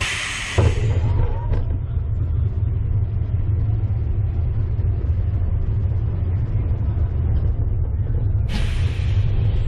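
Vekoma family coaster train rolling along its steel track: a steady low rumble of the wheels. A short hiss comes at the very start, and another lasting about a second comes near the end.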